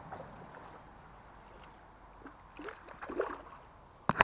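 Faint water sounds at the pond margin, with a few small splashes about two to three seconds in, then a single sharp knock near the end.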